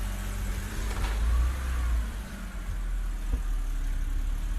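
BMW N52 inline-six engine idling smoothly, with a brief swell in engine sound about a second in. It runs evenly, with its misfires cured after new ignition coils and spark plugs.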